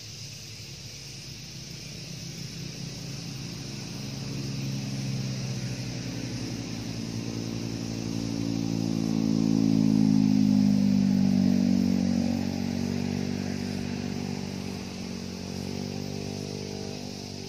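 Engine of an unseen motor vehicle, slowly growing louder to a peak about ten seconds in and then fading away, its pitch shifting as it goes, over a steady high hiss.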